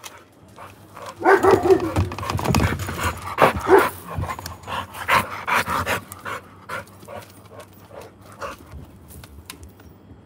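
American Bully dog panting close to the microphone, loudest about a second in, then settling into quicker, softer rhythmic pants.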